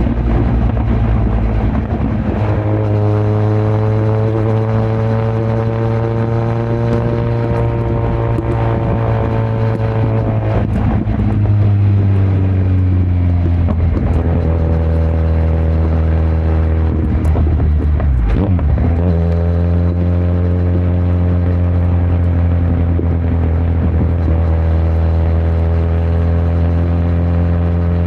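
2018 Kawasaki Z900's inline-four engine through an open Yoshimura muffler and Delkevic headers with no dB killer, running under way at steady revs. The pitch slides down about a third of the way in, and a short break about two-thirds in, a gear change, is followed by a steady note again.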